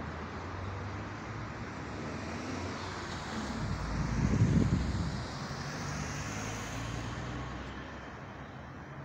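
A car drives past close by, its engine and tyre noise swelling to a peak about four seconds in and then fading, over steady background street traffic.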